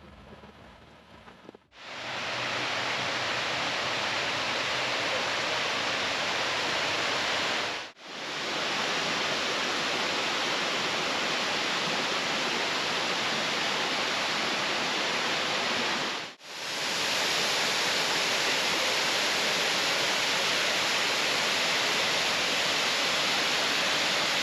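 Water rushing over a lake spillway waterfall: a steady, loud rush, heard in three stretches broken by two short gaps, with faint music fading out at the very start.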